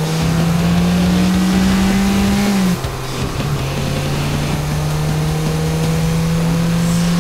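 Race car engine sound effect with a strong, steady note that climbs slowly in pitch. About three seconds in it breaks off and drops, then picks up again lower and climbs once more, like a shift up a gear.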